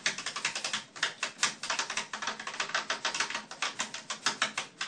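Rapid, uneven clicking, many sharp clicks a second, with no speech.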